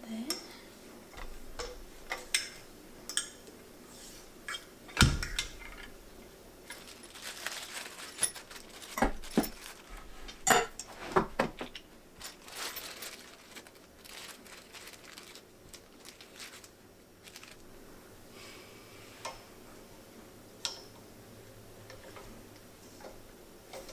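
Metal tubes of an over-bed table frame and loose screws and washers clinking and knocking as it is put together by hand, in scattered irregular clanks with the loudest about five and ten seconds in, and a stretch of rustling in the middle.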